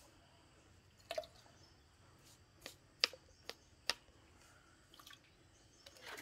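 A handful of light, irregularly spaced clicks and drips as liquid rooting agent is measured out of a plastic bottle into its cap and poured into a galvanized watering can.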